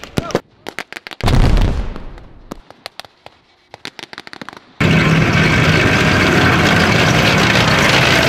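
Blank gunfire: a rapid string of rifle and machine-gun shots, a heavy boom about a second in, then scattered shots. At about five seconds it cuts to the steady, loud running of the M18 Hellcat tank destroyer's radial engine as it drives.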